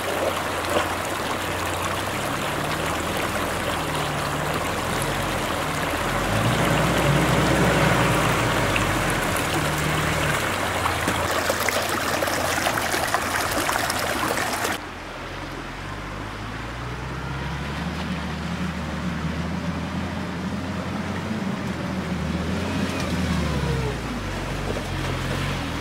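Rushing stream water over a UAZ Patriot's engine running. About halfway through the water noise drops away, and the engine is heard on its own, revving up and easing off.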